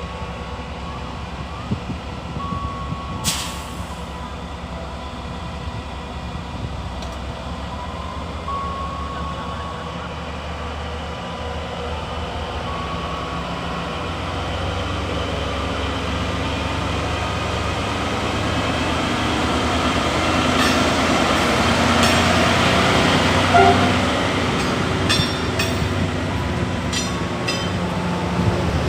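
Diesel locomotive-hauled passenger train running, a steady rumble that grows louder over the second half, with a run of clicks and knocks in the last several seconds.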